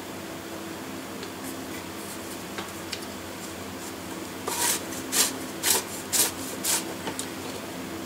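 Five short scraping strokes about two a second, from the threaded metal parts of a vintage Pifco motoring torch being screwed together by hand.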